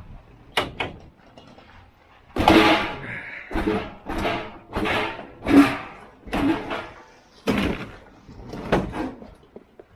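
A refrigerator being handled and moved: two light clicks, then a run of loud clunks and scrapes about every half second.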